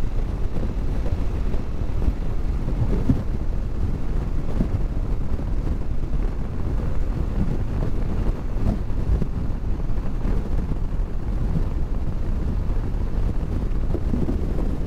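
Wind rushing over a motorcycle rider's camera microphone at road speed: a steady low rumble, with the motorcycle's engine and tyre noise underneath.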